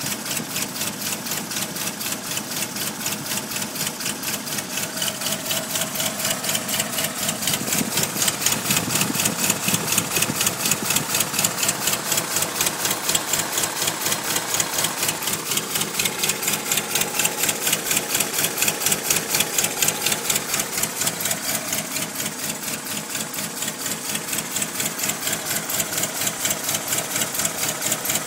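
Toyota 22R four-cylinder engine running with a fast, even ticking clatter, several ticks a second, over the engine note. The owner calls it a strange, weird noise of unknown cause.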